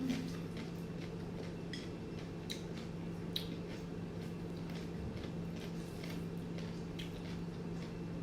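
Sparse wet mouth clicks and chewing sounds of someone eating rice and greens by hand, over a steady low hum.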